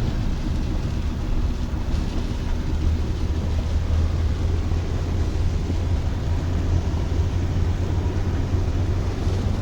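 Steady low rumble of a car being driven, heard from inside the cabin, with an even hiss above it.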